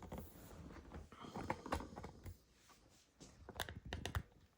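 Scattered light clicks and knocks of objects being handled, in small clusters, the plainest about a second and a half in and again toward the end.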